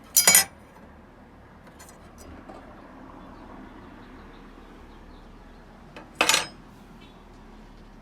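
Two brief metallic clatters about six seconds apart: small steel parts or a tool knocking against the typewriter's metal frame while it is being taken apart.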